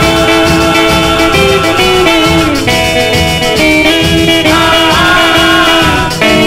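Music from a 1958 rockabilly-era blues ballad on a 45 rpm single: an instrumental break with no lead vocal, the band of guitar, bass, drums and piano playing held, sustained notes over a steady beat.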